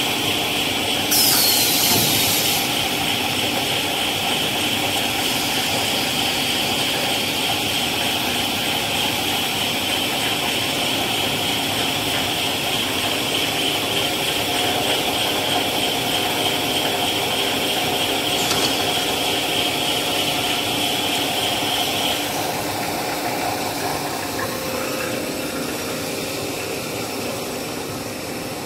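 Stretch-film cast extrusion line running steadily with a high whine, its winding station working through an automatic roll change. A short, loud hiss comes about a second in. The whine stops about 22 seconds in, and the drone eases off slightly after that.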